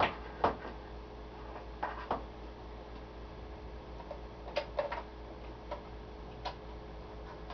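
Irregular sharp clicks and knocks from hands working a CB radio set's switches, knobs and connectors, about ten in scattered clusters, over a steady low electrical hum.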